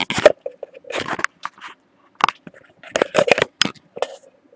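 Irregular crackling and crinkling noises in quick runs of sharp rustles, loudest just after the start and again around three seconds in, over a faint steady hum.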